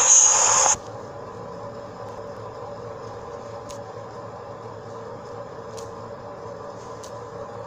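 A loud hiss lasting under a second at the start, then a steady low hum with a faint constant tone, broken by a few faint ticks.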